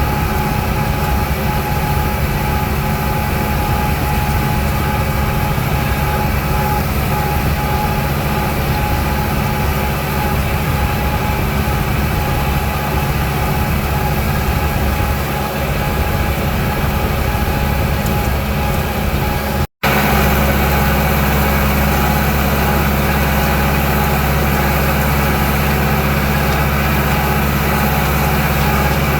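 Tractor engine running steadily under load while driving a McHale center-delivery rotary rake, a constant low drone. The sound cuts out for an instant about twenty seconds in, then carries on unchanged.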